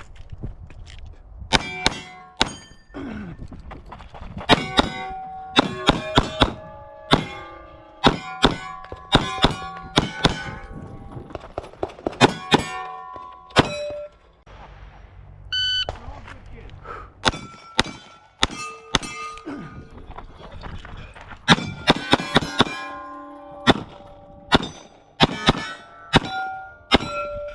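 Strings of 9mm pistol shots from a Glock 45, each hit followed by the ringing clang of a steel target. A short steady electronic beep about 16 seconds in, the start signal of a shot timer, sets off the second string.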